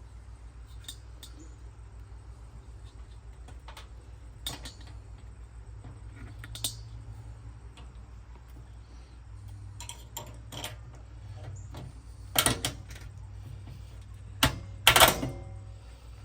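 Light metallic clicks and clinks of a latch's nuts and bolts being fitted by hand against a steel smoker lid, with a louder clatter of metal about twelve seconds in and again near the end, over a steady low hum.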